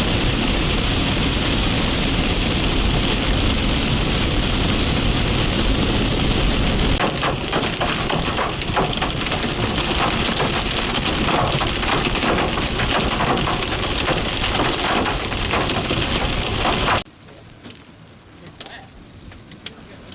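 Heavy rain and large hailstones pelting down in a dense, loud roar, with a deep wind rumble under it for the first seven seconds and many sharp hail strikes after that. About seventeen seconds in it drops off abruptly to a much quieter patter with a few scattered hits.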